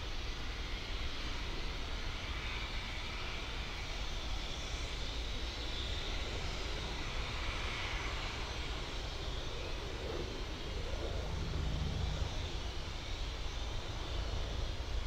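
Kawasaki BK117 twin-turbine helicopter flying at a distance, a steady rumble of rotor and turbine.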